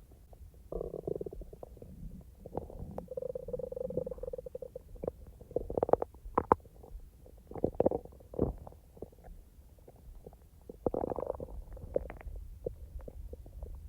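A person's stomach gurgling and rumbling during digestion: irregular gurgles and short pops, with longer drawn-out rumbles about three seconds in and again near eleven seconds.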